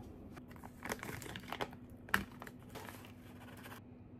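Crinkling of a plastic pouch of green tea powder being handled and opened, with a spoon going into it, in a run of short rustles and one sharp tap about two seconds in.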